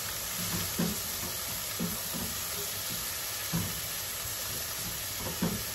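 Sliced onions and mushrooms sizzling in butter in a skillet while being stirred with a silicone spatula, a steady hiss with four short soft knocks of the spatula against the pan.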